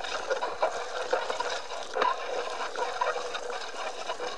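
Steady crackling rustle with many small ticks from a BMX ride along a tarmac road, heard through a handheld phone's microphone.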